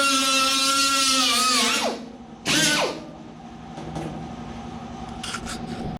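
Power drill running at a steady high speed, then released and spinning down about two seconds in. A short second squeeze of the trigger follows, also winding down. After that come a few light clicks and taps.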